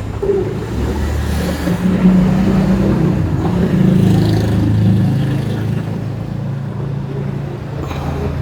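A car engine running close by, its pitch rising about two seconds in and easing back down after about five seconds.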